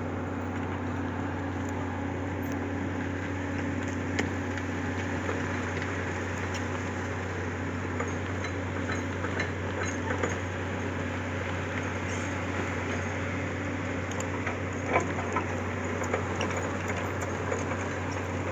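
Hitachi excavator's diesel engine running steadily with a constant low drone, and a few sharp knocks or clinks, the loudest about fifteen seconds in.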